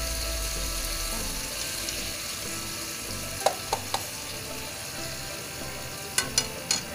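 Corned beef frying in hot oil in a wok, with a steady sizzle. A metal utensil knocks sharply against the open can three times a little past halfway, and three more times near the end.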